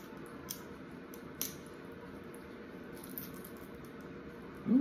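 Crab leg shell cracking as it is pulled apart by hand: two short sharp cracks about a second apart and a faint third one later, over faint room noise.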